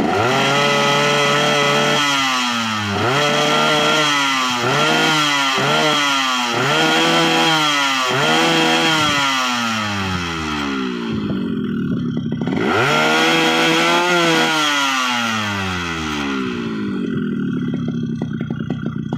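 Motorcycle engine revved again and again in quick throttle blips, with a longer rev about twelve seconds in, then dropping back to an uneven idle near the end. The engine coughs at full throttle, which is blamed on a bad carburetor.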